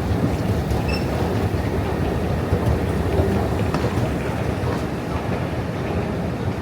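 New York City subway train running: a steady rumble of wheels on the rails, with a brief faint high squeal about a second in.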